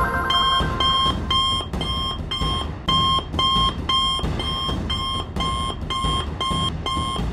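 Electronic alarm beeping: short beeps at two pitches at once, repeating steadily about twice a second, a communicator's alert signal.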